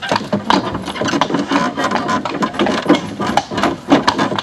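A horse walking on a paved road, its hooves clip-clopping in a dense, irregular clatter of sharp clicks.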